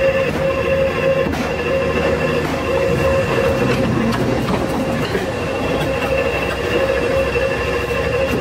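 Industrial paper guillotine cutter and factory machinery running: a steady mechanical rumble with a constant high whine.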